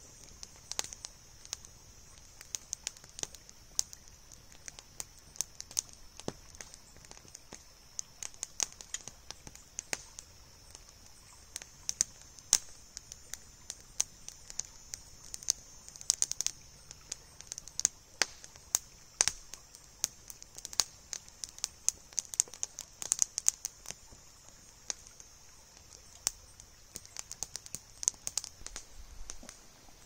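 Small wood campfire crackling, with irregular sharp pops and snaps, at times several a second, over a steady high hiss.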